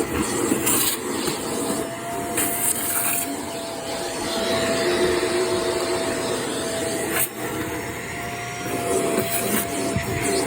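Vacuum cleaner running on stairs, its motor giving a steady whine over the rush of suction, with brief hissing surges as the nozzle moves and a sharp click about seven seconds in.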